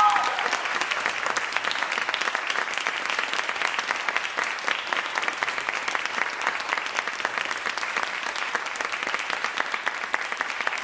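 Audience applauding steadily. In the first half second a held final note, several pitches sounding together, fades out under the clapping.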